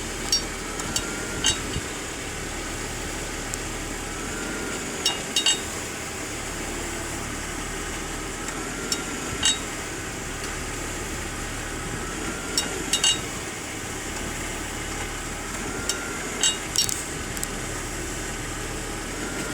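BMW 530i E39 underbody giving sharp metallic tinging clinks from around the drive shaft, two or three at a time, about every 3 to 4 seconds over the engine idling. Each cluster comes as the automatic is shifted between drive and reverse; the owner suspects something loose near the drive shaft.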